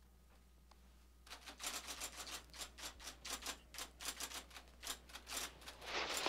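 Typewriter keys clacking in a fast, irregular run, starting about a second in after near silence.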